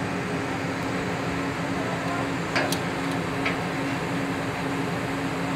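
Mobile crane's diesel engine running steadily under load during a steel truss lift, with a few short knocks near the middle.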